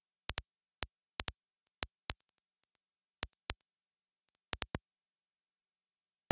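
About a dozen sharp, short clicks in otherwise dead silence: singles, pairs and a quick group of three, spaced unevenly over the first five seconds, with none after.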